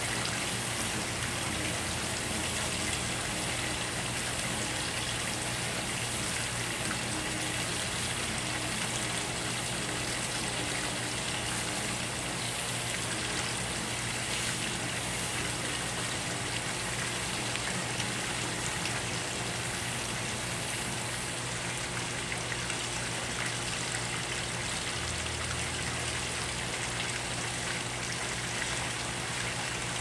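Steady, even background hiss with a water-like sound and a faint low hum underneath. There are no calls from the perched belted kingfisher.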